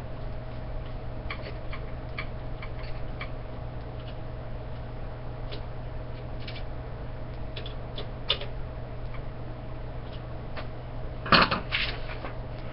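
Light clicks and taps of the metal TV antenna elements and a screwdriver being handled during assembly, scattered through, with a louder clatter about eleven seconds in. A steady low hum runs underneath.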